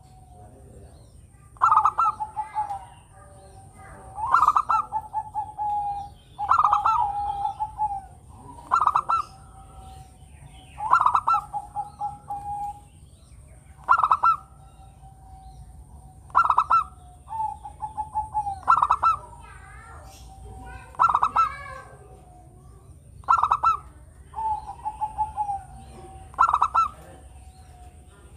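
Zebra dove (perkutut) singing steadily: a cooing phrase repeated about every two to three seconds, each a quick run of short staccato notes followed by a lower drawn-out coo.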